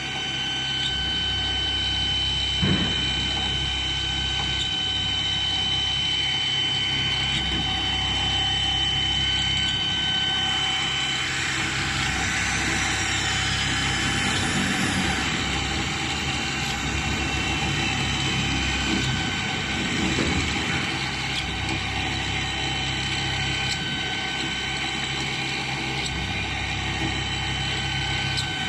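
CNC pipe drilling machine running, drilling a metal pipe dry without coolant, with a steady whine from the machine. A single knock about three seconds in, and a louder, harsher cutting noise for a few seconds in the middle.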